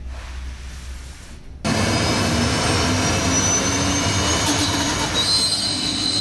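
CNC router machinery switching on about one and a half seconds in: a sudden loud, even rush of noise with a faint whine that climbs slowly in pitch as it spins up.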